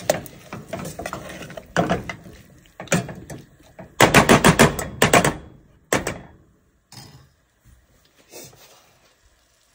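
Metal ladle scraping and clacking against the sides of a stainless steel pot while stirring frying tomatoes and leaves, with a rapid run of clacks about four seconds in, then the stirring stops.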